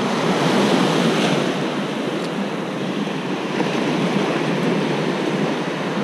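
Small surf waves washing in at the shoreline: a steady rushing noise, with some wind on the microphone.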